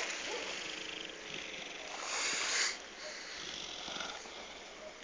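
Newfoundland dog breathing right at the microphone, a steady rough breath with a louder breath or sniff about two seconds in.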